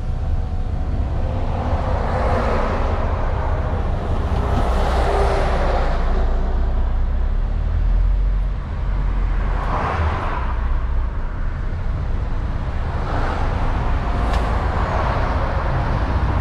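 Truck cab interior: the diesel engine's low, steady rumble with several swells of road and traffic noise from the lanes outside, and a single click about fourteen seconds in.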